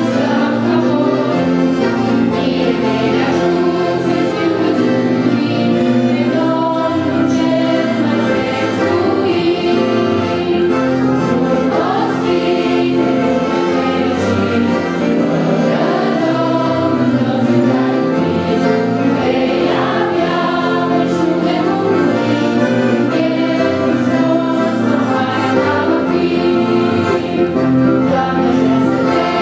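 A group of children and young women singing a Romanian Christian song together into microphones, accompanied by an electric keyboard.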